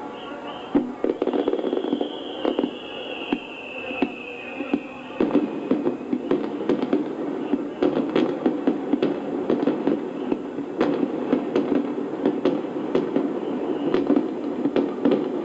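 Fireworks display: repeated sharp bangs of bursting shells, with a whistle falling in pitch over the first few seconds, then dense crackling from about five seconds in.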